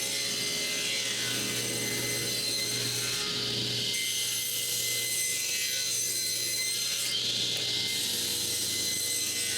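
Electric woodworking saw running and cutting along a square wooden block to take off its corners. The sound holds steady, with a brief change in the cutting noise twice, around the middle and near the end.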